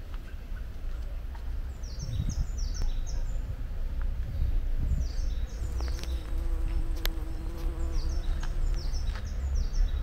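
A small songbird singing short bursts of rapid, high, falling notes, three times, over a steady low rumble. A flying insect buzzes with a steady hum for about three seconds, from about six seconds in.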